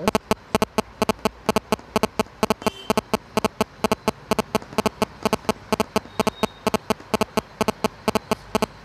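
A fast, fairly regular train of sharp, loud clicks, about five a second, that stops suddenly near the end.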